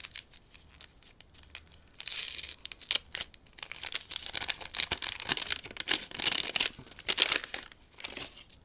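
Packaging being handled, crinkled and torn open by hand: an irregular run of crackles and rustles that starts about two seconds in and dies away near the end.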